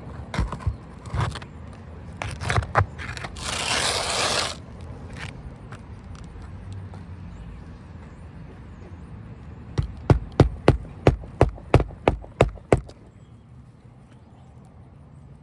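Asphalt roof shingles scraping and crackling as they are lifted and handled, then a hammer striking about ten times in quick, even succession, nailing a shingle down.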